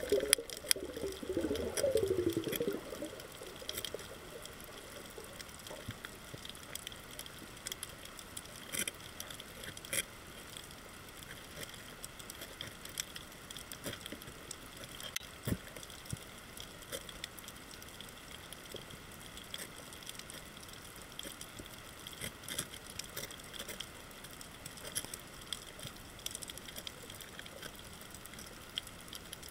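Underwater reef ambience heard through an underwater camera: a steady crackle of scattered sharp clicks, with gurgling water in the first three seconds.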